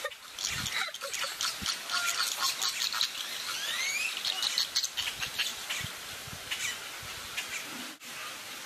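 Flock of flamingos calling, a dense chatter of many short overlapping calls. The calls briefly drop out about eight seconds in.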